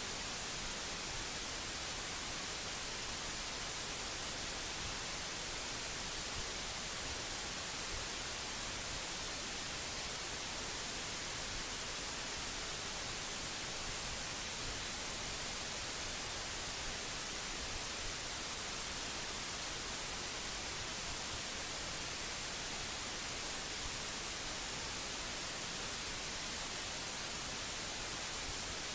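Steady static hiss, even and unchanging, strongest in the high end, with no other sound: the recording's noise floor.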